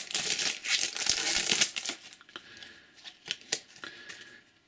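Foil trading-card pack wrapper crinkling as it is torn open and handled, for about two seconds, then a few light clicks and taps.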